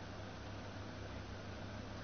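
Steady, even hiss with a low hum underneath, unchanging throughout.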